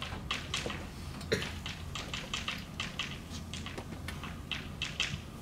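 Chalk writing on a blackboard: a quick, irregular run of taps and short scratches as letters are written, over a low steady hum.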